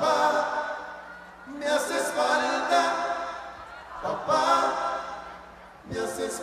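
Singing voices holding long sung phrases, four swells that rise and fade about every two seconds.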